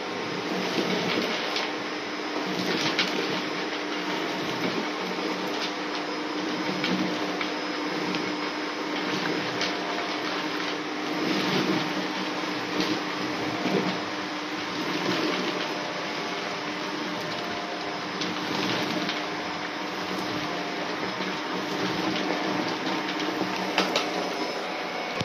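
Upright vacuum cleaner running steadily with a motor whine while its brushroll sucks up shredded paper. Frequent light ticks and crackles come from the paper pieces going up the nozzle.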